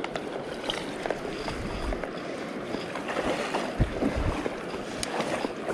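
River water splashing and rushing around a landing net as a hooked rainbow trout is brought in, with wind buffeting the microphone and a couple of low thumps about four seconds in.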